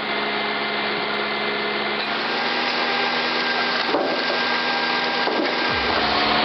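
Wood-processing machine running steadily under power: a dense mechanical whirr over a steady hum, with a few short pitch slides about four seconds in and near the end.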